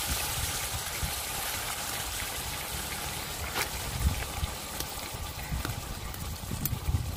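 Chunks of raw beef sizzling in hot oil in a large aluminium karahi, with scattered crackling pops; the sizzle slowly fades. A low rumble runs underneath.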